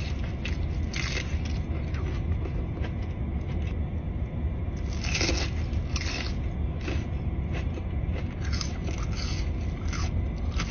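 Close-up chewing of extra-crunchy fried chicken tenders: a series of crisp crunches about a second apart, over a steady low hum.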